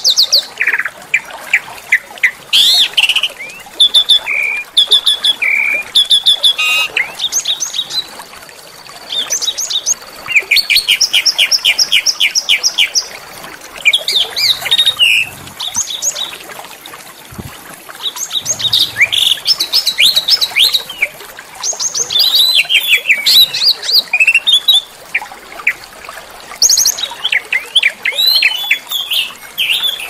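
Small songbirds singing in quick, closely packed runs of harsh chirps, trills and rapid repeated notes. There are short lulls about eight seconds in and again past the middle.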